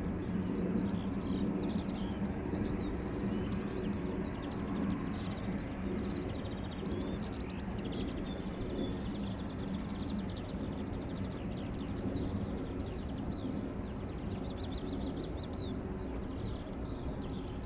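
Aircraft engines humming steadily with a low drone at a distance, while small birds chirp and trill throughout. There is a low rumble of wind on the microphone.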